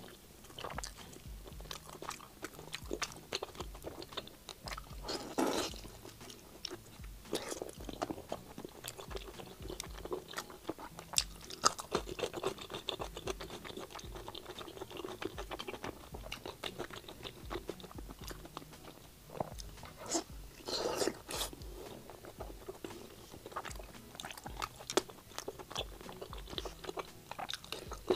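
Close-miked eating: biting into and chewing a slab of braised pork belly, with wet mouth clicks and smacks and crisp crunching bites, a couple of them louder, about five seconds in and about two-thirds through.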